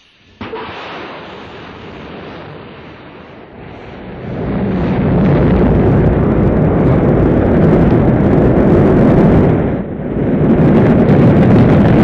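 Rocket launch: a sudden burst of noise about half a second in, then a deep rumble of the engines and boosters that swells about four seconds in and stays loud, with a brief dip near the end.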